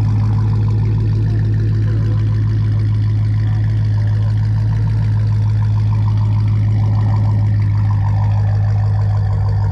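Dodge Charger Scat Pack's 392 HEMI V8 idling steadily after a warm start, heard through a catless MBRP race cat-back exhaust with 3-inch piping. It holds a low, even beat with no revving.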